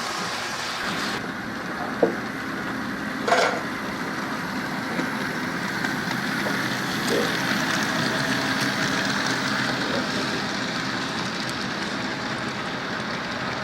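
Model train running on the layout: a steady running noise, with two sharp clicks about two and three seconds in.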